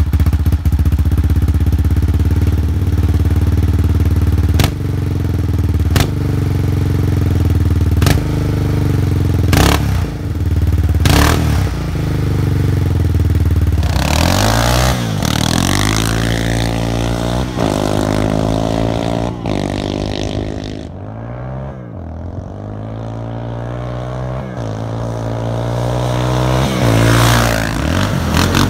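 2001 Yamaha Raptor 660R's single-cylinder four-stroke engine through an HMF Performance Series full exhaust. It idles with several sharp throttle blips, then, as the quad is ridden, revs up and down over and over. The engine fades somewhat in the middle of the riding and grows louder again near the end.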